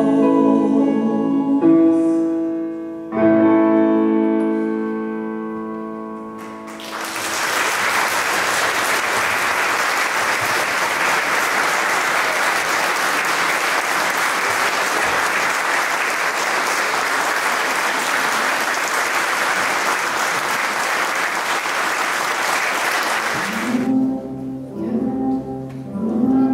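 A piece of music closes on a held chord that fades away. Then the audience applauds steadily for about seventeen seconds, and the next piece begins near the end.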